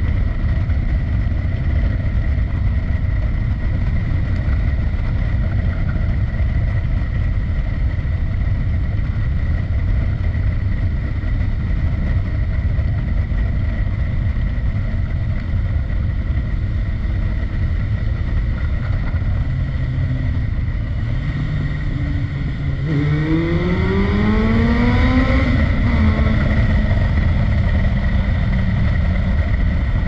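Kawasaki ZR7's air-cooled inline-four breathing through an aftermarket MTI exhaust, running steadily at cruising revs in a road tunnel. About three-quarters of the way in, the revs climb for a couple of seconds as the bike accelerates, then ease back a little and hold.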